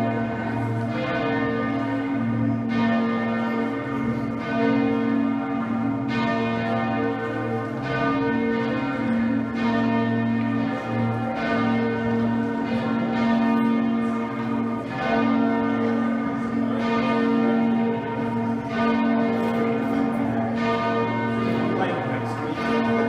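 Exeter Cathedral's ring of twelve bells, with a 72 cwt tenor, rung full-circle by a band of ringers. Bell strikes follow one another without a break, each ringing on, with the deep hum of the heavy bells sustained beneath.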